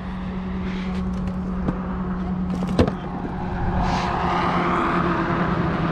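Road traffic: a car passing, its noise swelling through the second half, over a steady low hum. A single sharp knock sounds just before the middle.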